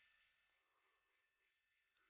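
A night insect calling faintly, a steady run of high-pitched chirps about three a second.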